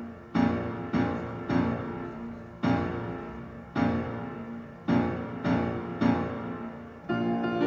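Background piano music: slow chords struck about once a second, each ringing out and fading, with a fuller, busier passage beginning near the end.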